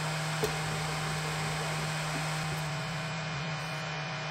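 Creality 10W diode laser module with air assist running steadily while the laser cuts black acrylic: a constant low hum under an even hiss of moving air from the module's cooling fan and the air-assist pump.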